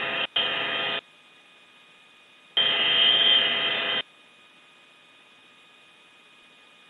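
Radio channel keyed open without speech: three bursts of static hiss with a steady hum, each starting and cutting off abruptly, the longest and loudest from about 2.5 to 4 seconds in.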